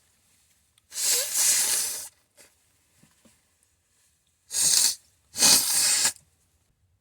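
A person sneezing: three loud, noisy blasts, the first lasting about a second, the other two close together near the end.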